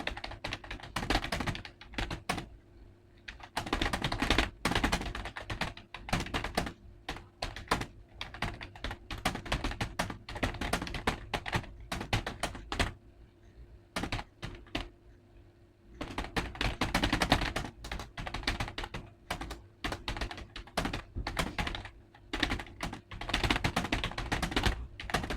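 Fast typing on a well-worn Intex computer keyboard with loose keys: a dense run of soft key clicks, broken by a few short pauses.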